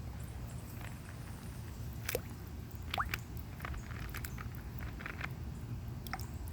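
Swimming-pool water dripping and lapping: scattered small drips and splashes, with a few quick rising plinks about two and three seconds in, over a steady low rumble.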